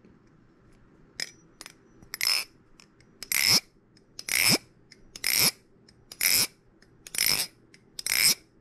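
A Hom Design Basilisk-I channel-construction balisong (butterfly knife) being flipped over and over: two light clicks, then a crisp swish-and-clack about once a second, each with a slight metallic ring.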